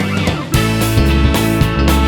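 Background music with guitar and a steady beat; about half a second in it passes through a short transition into a new section with a heavier bass line.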